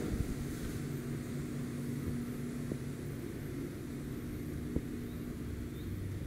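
Cable car cabin moving out through its station, heard from inside the cabin: a steady low mechanical hum from the drive and running cable, with two small clicks, about two and a half and five seconds in.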